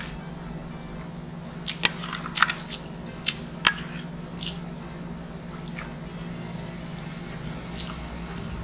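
Close-miked mouth sounds of chewing food, with a handful of sharp clicks of a metal fork against the wooden serving board as it picks through pancit noodles, the clicks bunched around two to four seconds in. A low steady hum runs underneath.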